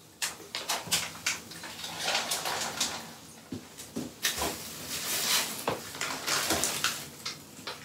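Hands rummaging among plastic fish-shipping bags inside an insulated box liner: irregular crinkling and rustling with scattered clicks and light knocks, in several bursts.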